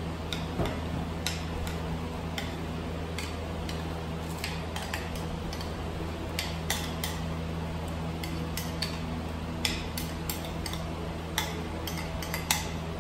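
A spoon scraping and clinking against a ceramic bowl as thick yogurt sauce is scooped out, in irregular light clicks, over a steady low hum.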